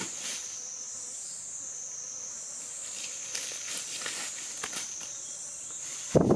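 Forest insects droning steadily at one high pitch, with faint crunches of footsteps in dry leaf litter. A sudden loud noise breaks in right at the end.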